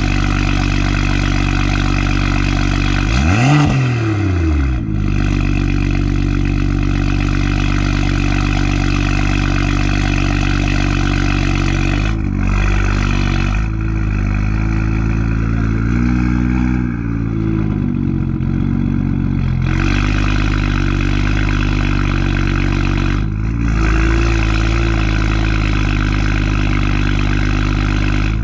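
BMW M2's N55 turbocharged straight-six idling through an Akrapovic exhaust. It is blipped once about three seconds in, a quick rise and fall in pitch, with a few lighter blips later on.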